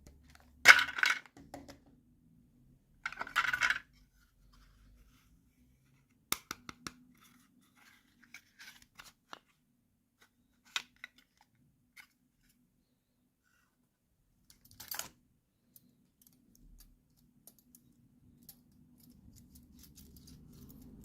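Small plastic toy pieces being handled. There are short rustles about a second in and again around three seconds, scattered light clicks and taps of hard plastic, and one more rustle about fifteen seconds in.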